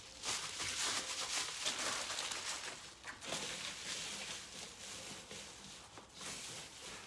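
Rustling and light knocks of small items and their packaging being handled and put down on a workbench.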